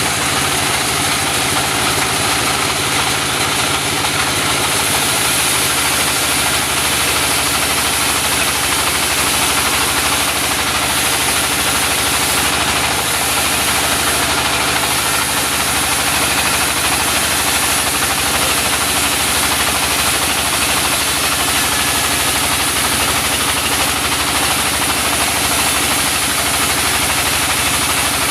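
Small mobile sawmill running steadily: an engine drone with an even hiss over it, as the saw cuts a mindi log into boards.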